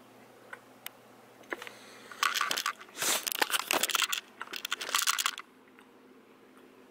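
Handheld camera handling noise: a few light clicks, then loud rustling and scraping as the camera is turned around close against clothing. A faint steady hum runs underneath.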